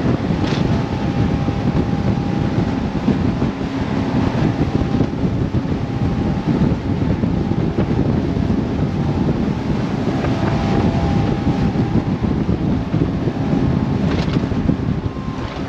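Motorboat running under way through rough water, with strong wind buffeting the microphone; the engine is a faint steady tone under the loud wind noise.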